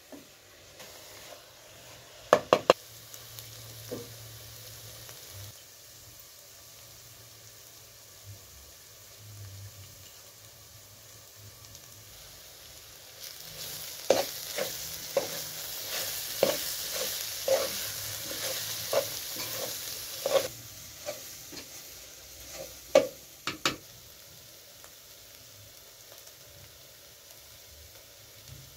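Chopped green herbs frying in an aluminium pot, stirred with a spoon that knocks and scrapes against the pot's side. Three sharp knocks come early on. About halfway through, a louder sizzle swells up for several seconds with a run of quick spoon knocks, then dies back, and a couple more knocks follow.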